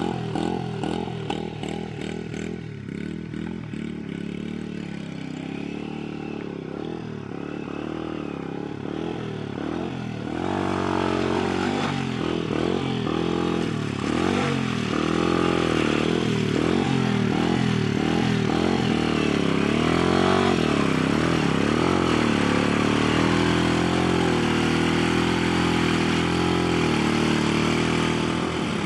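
150cc ATV engine revving up and down again and again as the quad is driven through mud. It gets louder about ten seconds in.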